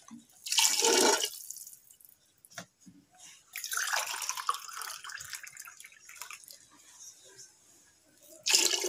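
Water poured into a pressure cooker of spiced vegetable broth, splashing in two pours: a short one about half a second in and a longer one from about three and a half seconds that trails off.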